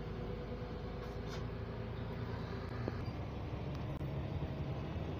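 Steady truck engine and road noise heard from inside a truck cab, a low running rumble with no change in pace.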